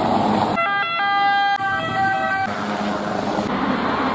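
Quickly cut montage of emergency-vehicle sounds: steady vehicle noise with a thin high whine, broken by about two seconds of siren tones switching between pitches. Each piece cuts off abruptly.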